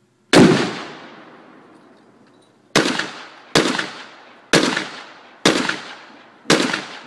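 Gunshots at a range, each sharp crack followed by a trailing echo. One shot comes just after the start; after a pause of about two seconds, five more follow at roughly one per second.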